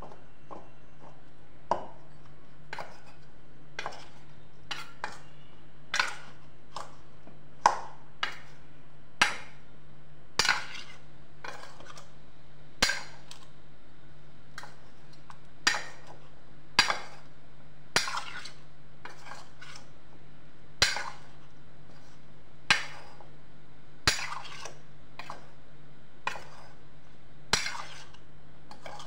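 Sharp metallic clinks and knocks from a stainless steel mixing bowl, irregular, about one every second or two, as raw potato sticks are tossed by hand in a dry flour coating.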